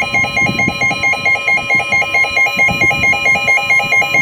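Weather alert radio sounding a flash flood warning alarm: a steady, unbroken alert tone with rapid electronic beeping pulsing over it.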